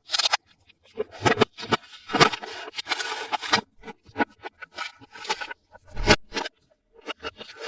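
Hands handling toy packaging and plastic toy parts: a series of clicks and taps, with a stretch of scraping and rustling about two to three and a half seconds in.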